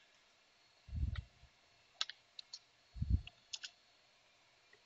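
Computer keyboard keystrokes: a few scattered sharp clicks and two dull low thumps.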